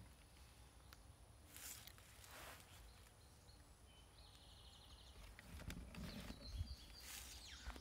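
Near silence: faint outdoor ambience, with a soft low rumble and a few faint knocks near the end.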